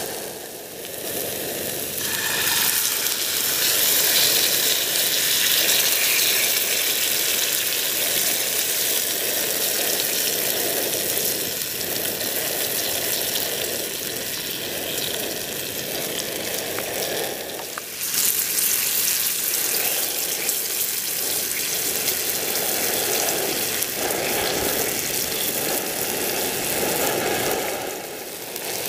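Food frying in a camping pan on a portable stove: a steady sizzle, with abrupt shifts in its tone about two seconds in and again a little past halfway.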